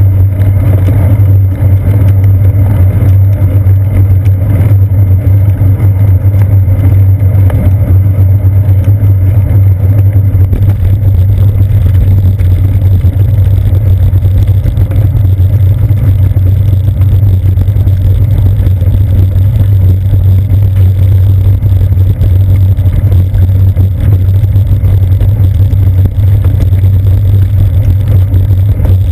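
Loud, steady low rumble of wind and road vibration picked up by a seat-post-mounted GoPro Hero 2 on a moving bicycle. From about a third of the way in, a rougher tyre hiss joins it as the bike rolls onto brick pavement.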